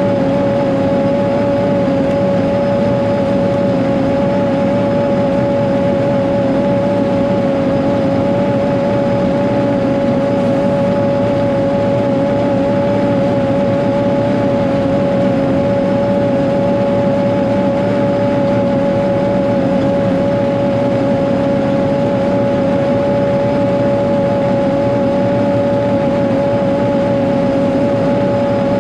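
Caterpillar 140G motor grader's diesel engine running steadily as the grader works, with a constant whine over the engine note.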